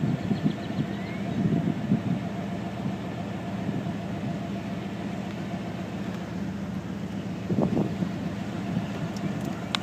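A vehicle engine idling steadily, with a low, even hum and some wind noise.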